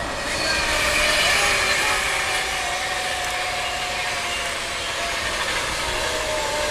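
A train passing at speed: a steady rush of noise that swells about a second in, with a faint tone that drops a little in pitch near the end.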